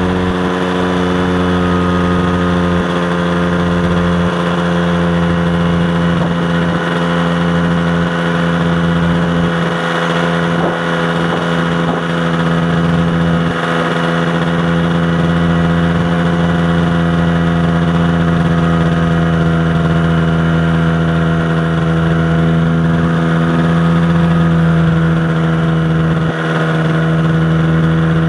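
Light aircraft's piston engine and propeller running at a steady speed, one even engine note that holds its pitch throughout.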